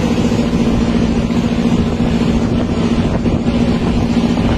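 Engine of a motorised wooden river ferry boat running steadily under way, a constant drone with steady hum over wind and water noise.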